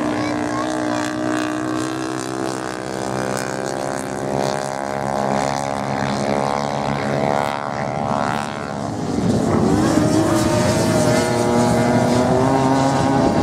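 Off-road motorcycle engines running, the note of one falling steadily through the first half, then a louder engine coming in about nine seconds in with a wavering pitch.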